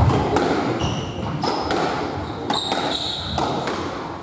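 Squash rally: sharp knocks of the ball off rackets and court walls, with several short high squeaks of shoes on the wooden court floor.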